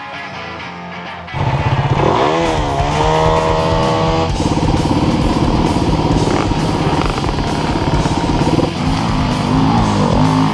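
Off-road motorcycle engine revving up and down, then running under steady throttle, over guitar music. The engine cuts in suddenly a little over a second in.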